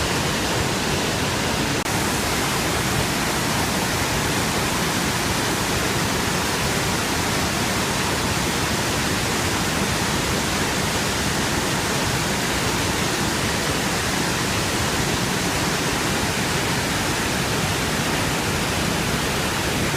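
Large waterfall, a steady, even rush of falling water with no let-up.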